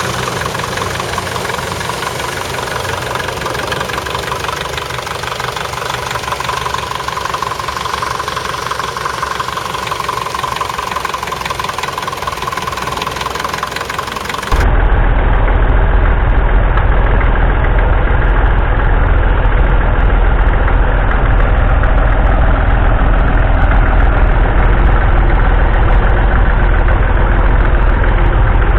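Classic tractor engines running steadily. About halfway through, the sound cuts to a different, louder and deeper-sounding engine.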